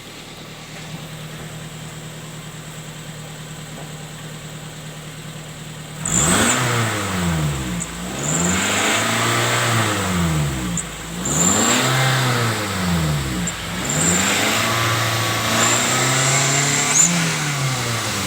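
A vehicle engine with a turbo whistle attachment fitted in its exhaust pipe idles steadily, then about six seconds in is revved four times, each rev rising and falling in pitch, the last held longest. A thin high whistle from the attachment comes in briefly at the top of the revs.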